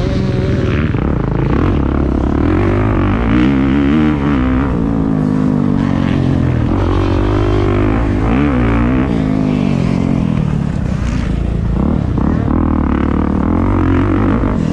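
Motocross dirt bike engine revving hard, its pitch climbing and dropping again and again as the rider accelerates, shifts and backs off through the corners and straights.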